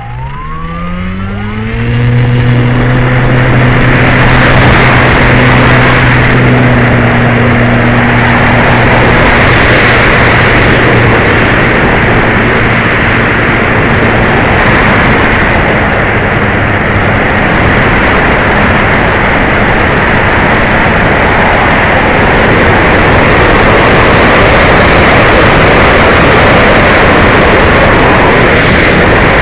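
The electric motor and propeller of an E-flite Apprentice RC trainer plane spin up to full throttle over about two seconds, a rising whine. They then hold a steady drone that fades under loud, continuous rushing air noise as the plane takes off and flies.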